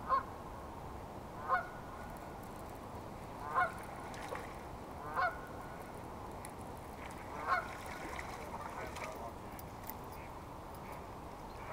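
A goose honking: five single honks a second or two apart, then fainter calls after about eight seconds.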